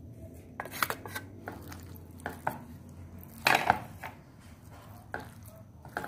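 Utensil scraping sardines in sauce out of a tin can into a glass bowl: scattered short clinks and scrapes of metal on the tin and the glass, with a louder clatter about three and a half seconds in.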